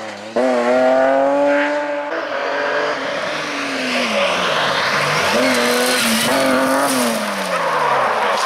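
Rally car engines at full throttle. First one car revs hard with its pitch climbing slightly. Then, after a cut about two seconds in, a BMW E30 rally car passes close by: its revs drop, climb again, hold, and fall away near the end, with tyre noise throughout.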